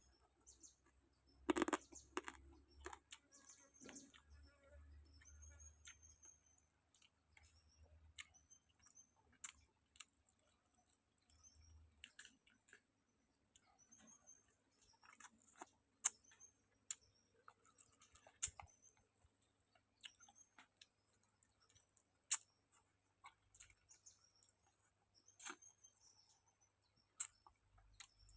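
Faint, scattered clicks and crunches of someone eating and chewing, with small birds chirping over and over in the background.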